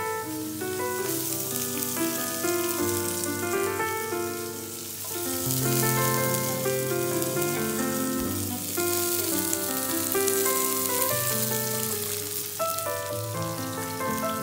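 Chopped garlic and shallot sizzling as they fry in oil in a pan, the hiss coming in about a second in, over background music.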